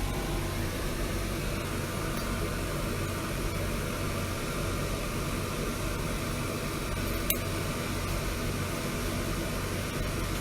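Steady fan noise with a low electrical hum underneath, typical of an extraction ventilation unit running. A single sharp click comes about seven seconds in.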